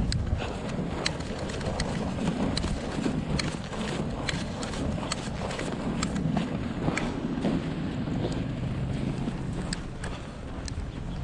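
Wind buffeting the microphone over a steady low street rumble, with sharp clicks at irregular intervals, roughly one every second.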